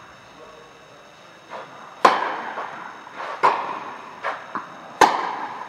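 Tennis balls struck by rackets in a rally: three sharp hits about a second and a half apart, with fainter ball bounces between them, each ringing on in the echo of a large indoor tennis hall.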